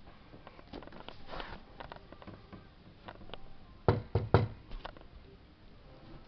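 A quick run of three or four sharp knocks about four seconds in, among faint scattered clicks and rustling.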